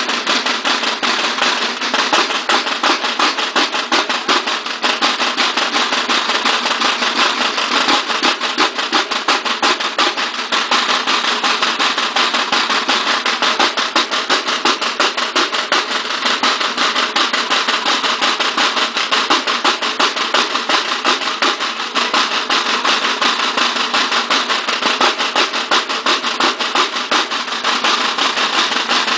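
A banda de guerra's line of marching snare drums played together: a fast, unbroken drum pattern of rapid strokes and rolls.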